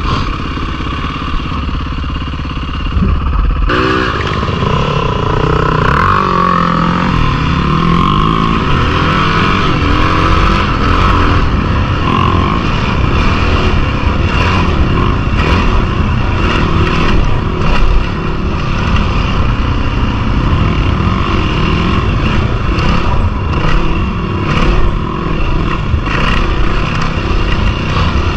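Yamaha WR450F dirt bike's single-cylinder four-stroke engine heard from on board while riding, rising and falling in pitch as the throttle is worked, with rumble and scattered knocks from the trail.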